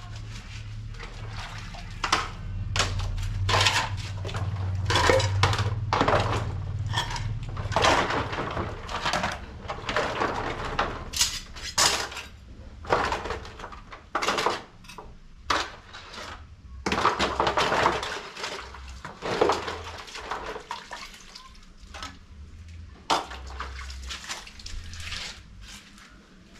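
Metal pots, dishes and cutlery clattering as they are handled, a long run of irregular clinks and knocks.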